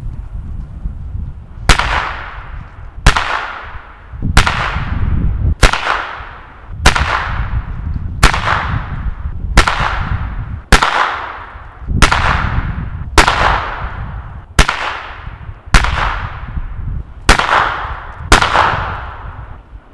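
Weco Pyrocracker firecrackers (China crackers) exploding one after another: fourteen sharp bangs, about one every 1.3 seconds, each followed by a ringing echo that dies away.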